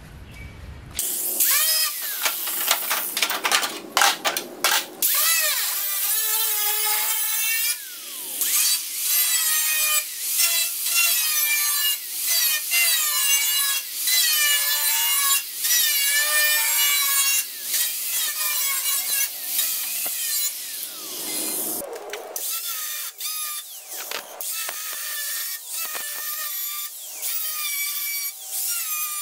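Angle grinder with a thin cut-off wheel cutting through a rusted steel sheet-metal body panel. The motor starts about a second in, and its high whine wavers in pitch as the disc bites and eases in the cut. It breaks off briefly about three-quarters of the way through, then cuts on.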